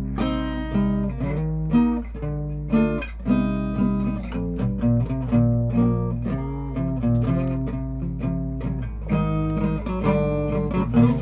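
Acoustic guitar played by hand, chords strummed and picked in a loose rhythm and left to ring, the chord shapes changing every second or so.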